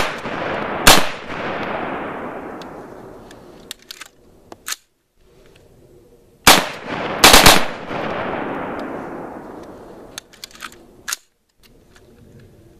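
AR-15 rifle in .223/5.56 being bump fired: a pair of shots at the start and a quick burst of three or four shots about six and a half seconds in. Each group is followed by a long rolling echo that dies away over about three seconds, with lighter clicks between the bursts.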